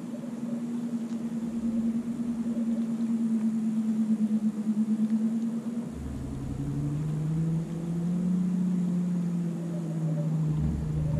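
A boat motor humming steadily, then dropping to a lower pitch about six seconds in, where it slowly rises and falls.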